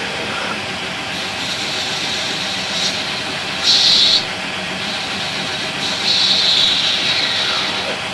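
Omniturn gang-tool CNC lathe running, its spindle turning steadily as it machines a brass bearing. A short, loud, bright hiss of a tool cutting comes a little before halfway, and a longer cut follows about two seconds later.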